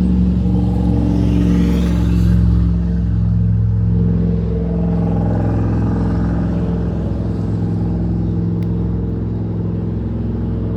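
Motor vehicle engine running with a steady low hum. A louder swell of road noise about two seconds in fades away, like traffic passing.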